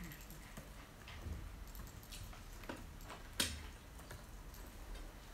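Faint, scattered clicks and taps from working a laptop's keys and trackpad, with one sharper click about three and a half seconds in.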